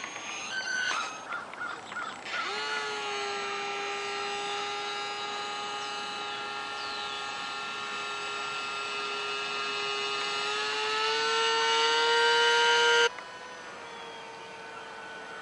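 Small electric motor and propeller of a ParkZone Ultra Micro Icon A5 RC flying boat: a few short throttle blips, then a steady whine that climbs in pitch and grows louder before cutting off suddenly near the end.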